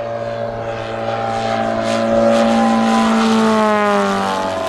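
Valach two-cylinder boxer petrol engine of a large model Pitts biplane running at speed in flight, growing louder as the plane comes close, then dropping in pitch near the end as it flies past.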